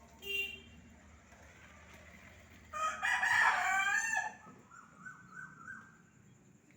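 Rooster crowing once, a loud cock-a-doodle-doo about three seconds in that lasts about a second and a half and trails off in quieter wavering notes. A short high call comes near the start.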